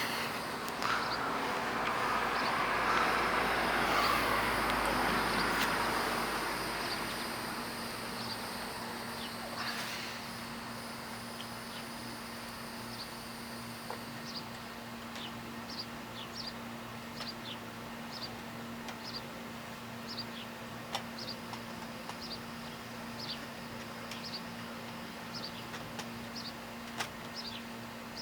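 A vehicle passing, its noise swelling and fading over the first several seconds. Then quiet outdoor ambience with a steady low hum and many short, high chirps scattered through the second half.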